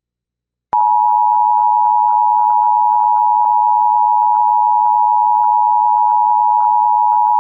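Emergency Alert System attention signal: a loud, steady two-tone electronic alert tone that starts sharply about three-quarters of a second in, after a short silence. It announces an incoming severe thunderstorm warning.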